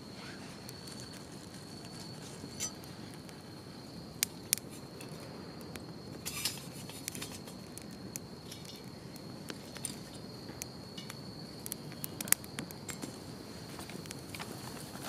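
Small wood fire crackling in a TOAKS titanium wood-burning stove, with scattered sharp pops from the burning sticks. A steady high insect trill runs behind it.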